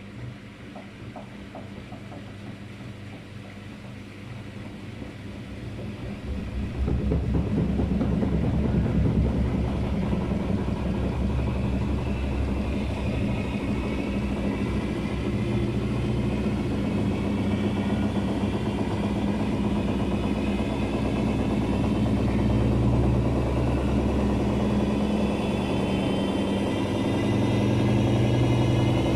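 Daewoo DWD-FT1013 washing machine on an unbalanced spin cycle set to 800 rpm. The drum runs moderately loud at first, then about seven seconds in it suddenly becomes much louder with a heavy low hum as it speeds up, and a faint motor whine slowly rises in pitch.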